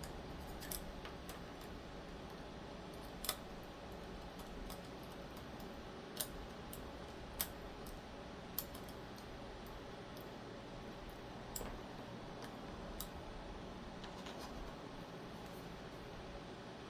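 Scattered sharp clicks and taps of small metal knife parts and tools being handled while a crossbar-lock folding knife is taken apart, about a dozen at irregular intervals over a steady faint hiss.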